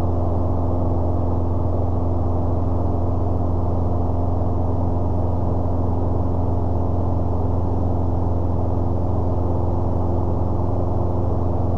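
Citabria 7ECA's piston engine and propeller running steadily in cruise flight, heard through the cockpit intercom as a deep, even hum with no change in pitch.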